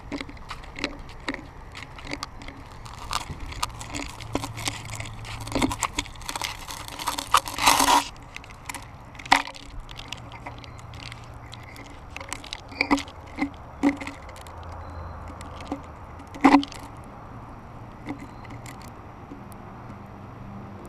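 Irregular clicks, knocks and rustling on a GoPro's housing as it hangs from a bunch of helium balloons, with the balloons and tether bumping and rubbing against the case. The ticks crowd together about six to eight seconds in, and there are sharper single knocks about nine and sixteen seconds in.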